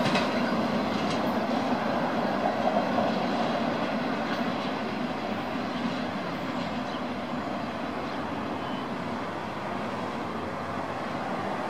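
A double-stack container freight train's wheels rolling on the rails as the last cars move away. There are a few sharp rail clicks at first, then the rumble fades steadily as the train recedes.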